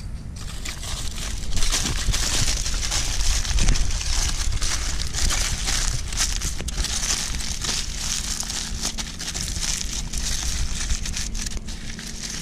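Aluminium foil crinkling and crumpling in quick, dense crackles as it is folded and wrapped around a fish.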